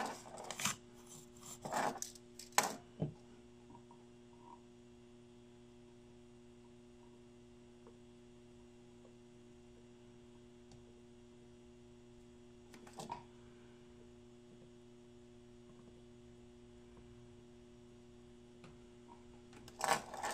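Faint steady electrical mains hum. In the first three seconds a soldering iron tip is jabbed and scraped in a brass-wool tip cleaner, giving a few sharp clicks and scrapes, and there is one brief scrape about thirteen seconds in.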